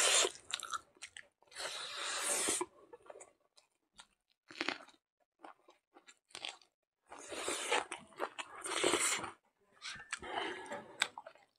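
A person chewing and crunching a mouthful of food close to the microphone, in bunches of crunches with small mouth clicks between them.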